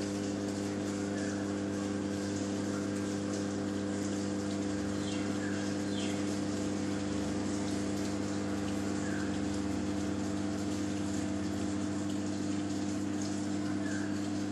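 Reef aquarium pump humming steadily, with a light wash of moving water and a few faint, short chirps.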